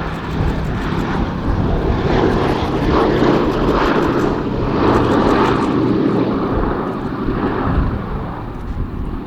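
Boeing B-17G Flying Fortress's four Wright Cyclone radial engines droning as the bomber flies past, swelling about halfway through and easing off near the end.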